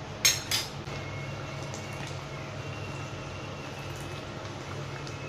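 A metal ladle knocks twice, sharply, against the aluminium kadhai near the start. Then a steady low hum runs on under faint liquid sounds from the dal cooking in the pan.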